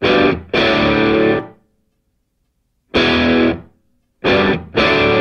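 Background rock music: distorted electric guitar chords played in short stop-start bursts, broken by sudden gaps of silence, the longest about a second and a half near the middle.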